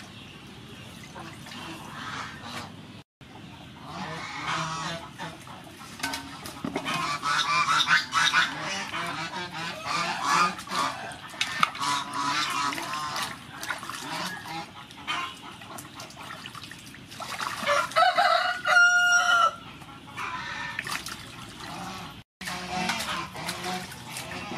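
Poultry calling, with clucking and chattering through the middle and one long, steady call near the end, over light splashing of hands washing vegetables in a water-filled metal basin.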